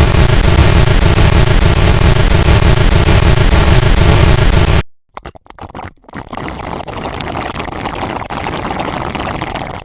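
Very loud, harsh, distorted rumbling noise that cuts off suddenly about five seconds in, followed after a short stuttering gap by a second, quieter crackling noise.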